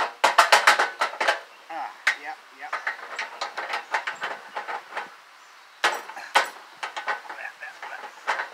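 Hand hammer striking a go-kart's front spindle bolt to drive it into the spindle: a quick run of sharp strikes, several a second, then lighter, irregular taps, then another run of strikes near the end.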